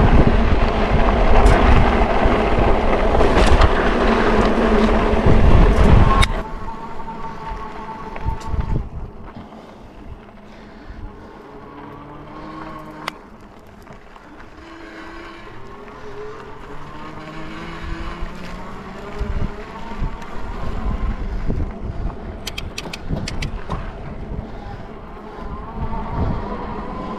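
Wind buffeting the microphone of a fat-tire electric bike rolling fast on a dirt trail. It is loud for about the first six seconds, then drops to a quieter rumble of tyres on dirt. From about twelve seconds in, the 750 W hub motor gives a faint whine that rises in pitch as it pulls.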